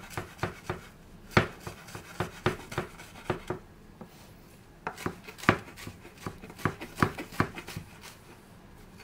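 Chef's knife finely chopping fresh mint leaves on a wooden cutting board: an uneven run of sharp knocks, two or three a second, with short pauses about four seconds in and near the end.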